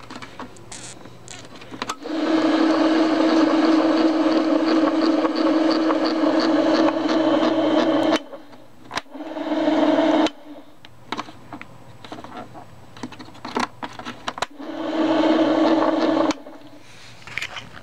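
Sears Craftsman Home Sharpener's electric motor spinning its grinding wheel with no load, switched on and off three times: a run of about six seconds, a short run of under a second, then about two seconds, each a steady hum that starts and cuts off sharply. Scattered clicks and knocks fall in the gaps between runs.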